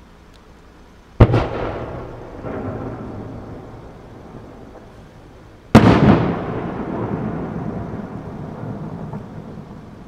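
Two aerial firework shells bursting about four and a half seconds apart, each a sharp bang followed by a long rolling rumble that dies away over several seconds.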